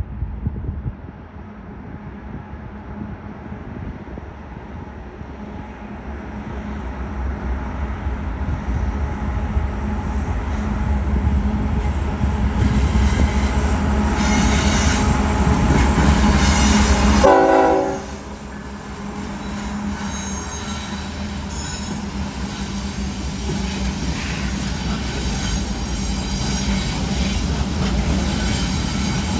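A string of Union Pacific diesel locomotives running together as they pass at close range, a deep engine rumble with rail and wheel noise. It gets steadily louder, drops off suddenly a little over halfway through, then builds again.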